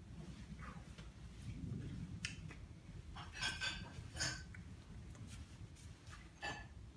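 Soft rustles and light taps from hands and a nylon puffer jacket as a signer fingerspells, several brief scratchy swishes, the strongest a little past the middle, over a low steady room hum.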